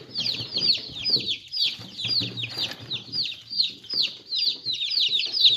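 A crowd of newly hatched chicks peeping continuously: a dense chorus of short, high, falling peeps, several a second and overlapping.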